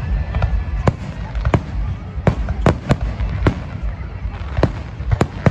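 Aerial fireworks bursting overhead: an irregular run of sharp bangs, about two a second, over a low rumble.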